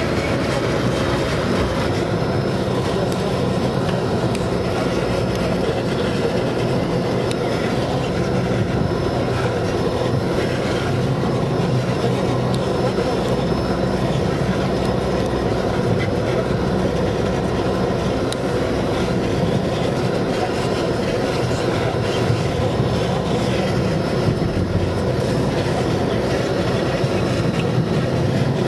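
Steady rumble of a car driving along a road, heard from inside the cabin: tyre and engine noise at an even level throughout.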